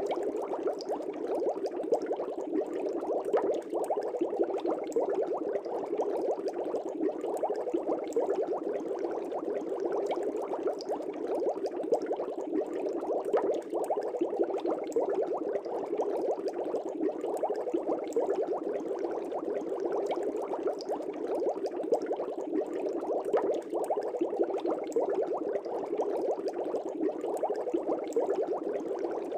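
Aquarium air bubbles rising and bubbling in a fish tank: a steady, dense bubbling with many small pops.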